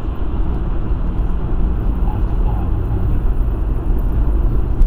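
Steady low rumble of a car driving on a wet road, heard from inside the cabin: engine and tyre noise with a hiss from the wet tarmac.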